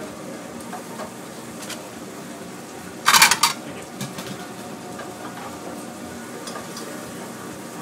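A metal oval platter clatters onto a stainless steel counter about three seconds in, rattling for about half a second as it settles, followed by a lighter knock, over steady kitchen background noise.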